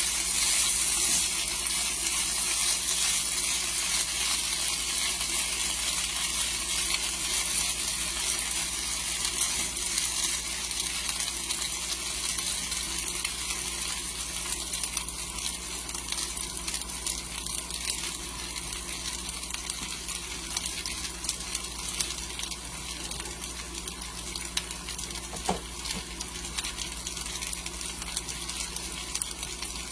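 Sliced potatoes frying in oil in a pan: a steady sizzle with fine crackling, gradually getting quieter after the heat is lowered.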